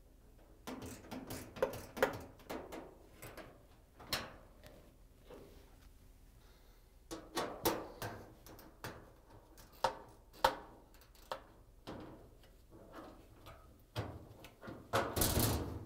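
Socket ratchet clicking in short runs and metal tools clinking while screws are backed out of a dryer's sheet-metal top corner. A louder scraping rustle comes near the end.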